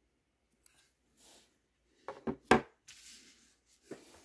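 Handling noise as a small alarm clock is set down on a wooden tabletop: a few short knocks, the loudest about two and a half seconds in, with soft rubbing between them and two more knocks near the end.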